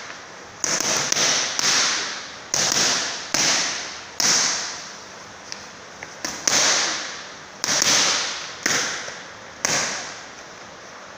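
Boxing gloves smacking into focus mitts in short combinations of one to three punches, about nine sharp smacks in all, each trailing off in a brief hiss. The punching stops about ten seconds in.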